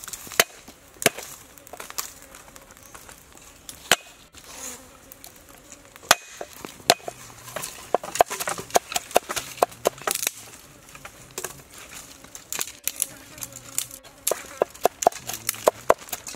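Cleaver chopping lemongrass on a wooden board: scattered single chops at first, then quick runs of chops from about eight seconds in and again near the end. A faint insect buzz comes and goes underneath.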